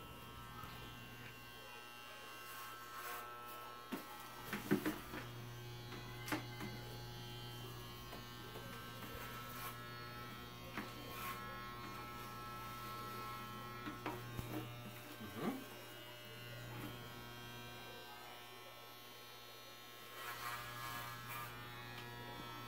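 Corded electric hair clippers running with a steady buzz as they are moved over a young child's hair.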